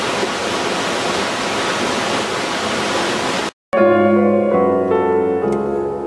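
Waterfall rushing with a steady, even noise that cuts off abruptly about three and a half seconds in. After a brief gap, piano music begins.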